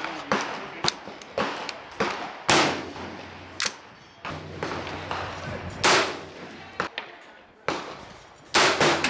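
Gunshots from several guns: about eleven sharp shots at irregular spacing, each trailing off in echo, three of them louder than the rest.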